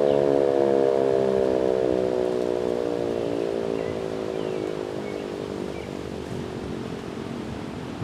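American Signal OM-120 omnidirectional electromechanical tornado siren winding down at the end of its steady Alert tone. Its chord of tones slides slowly lower in pitch and fades steadily.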